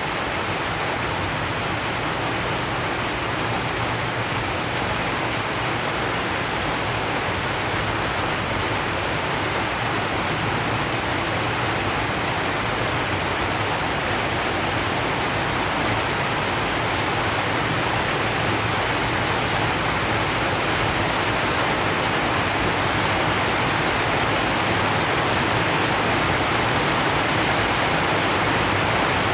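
Steady rain falling on a zinc sheet roof, an even, unbroken hiss.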